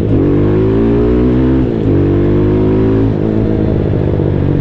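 Single-cylinder motorcycle engine accelerating through the gears. Its pitch climbs and then drops at each upshift, about two and three seconds in, then it runs steadier.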